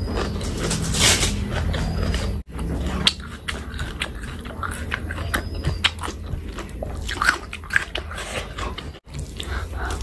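Close-miked wet chewing and lip-smacking of a mouthful of rice and oily chicken skin curry, with many short clicks, and fingers squishing rice into curry on a steel plate partway through. The sound drops out abruptly twice.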